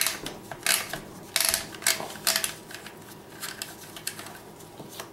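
Magazine cap of a Remington 870 Express pump shotgun being unscrewed by hand, a string of irregular sharp clicks as the cap turns over its retainer detents.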